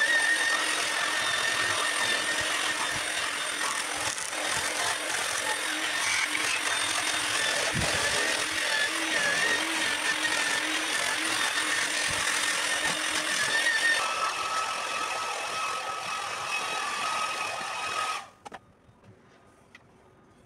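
Electric grinders fitted with sanding discs, an angle grinder and a straight grinder, running against cedro rosa (cedar) root wood to sand a bowl. The motor whine and disc-on-wood grinding are steady. About three-quarters of the way through, the whine shifts to a different pitch, and shortly after it cuts off.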